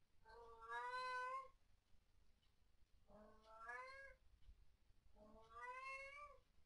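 Long-haired domestic cat meowing three times, each a long drawn-out call of about a second that rises slightly and drops at the end, with a second or two of quiet between calls.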